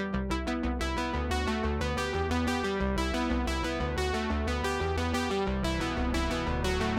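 Background music: synthesizer and electric piano playing quick, evenly repeated notes over a steady bass line.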